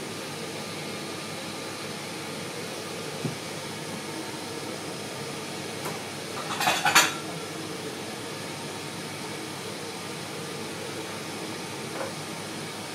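Steady ventilation hum in a kitchen, with a brief clatter of kitchenware about halfway through and a couple of faint clicks.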